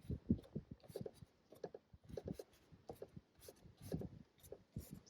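Close-miked painting tool working on canvas: short, irregular scratching and rubbing strokes, several a second.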